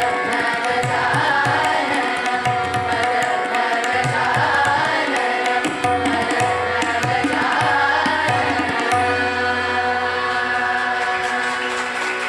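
A chorus of young voices singing a semi-classical song with harmonium and hand-drum accompaniment. The drum strokes stop about nine seconds in, and the voices and harmonium hold a closing note.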